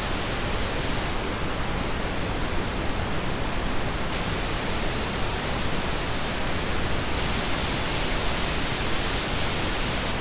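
Pink noise test signal, a steady even hiss. About seven seconds in, a 3 dB parametric EQ boost centred at 4 kHz is switched in, and the noise turns brighter and more forward, "launching out".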